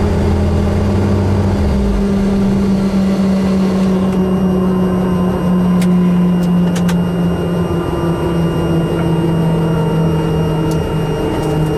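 Helicopter engine running steadily, a loud, even hum with a steady pitch; a deeper drone under it drops out about two seconds in. A few light clicks come through in the second half.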